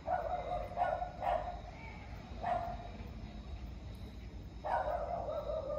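A dog barking several times. The last call, near the end, is longer and falls in pitch.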